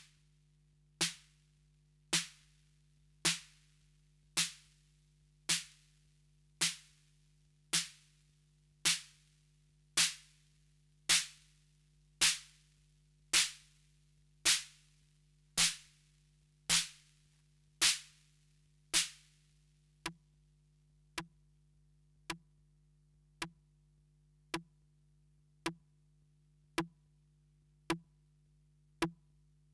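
Roland TR-808 snare drum struck over and over, a little more than once a second, dry. The hiss of each hit rings out longer over the first dozen or so hits, then after about two-thirds of the way through the hits turn short, clipped and quieter as the drum's controls are turned. A faint low hum runs underneath.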